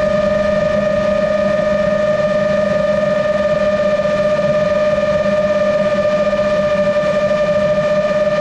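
GepRC MOZ-7 seven-inch long-range FPV quadcopter's motors and propellers whining steadily in cruise at one held pitch, over a rush of air noise.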